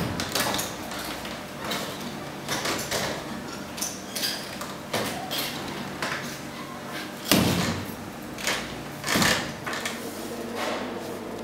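A door opening, then irregular knocks and steps in a room, with two louder thuds about seven and nine seconds in.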